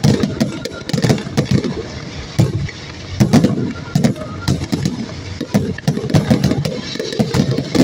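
Fireworks display: a rapid, irregular barrage of bangs from aerial shells bursting, several a second, over a continuous low rumble.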